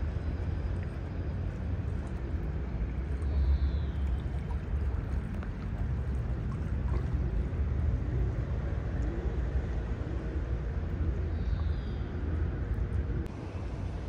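Steady outdoor ambience of moving water over a low rumble, with two faint short falling chirps, one about three and a half seconds in and one about eleven and a half seconds in.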